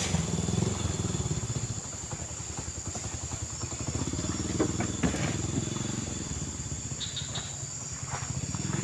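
A motor vehicle engine runs, loud at the start and fading over the first two seconds to a low rumble. Under it come a few scattered thuds as oil palm fruit bunches are speared with a spiked pole and tossed onto a truck bed. There is a sharp click right at the start.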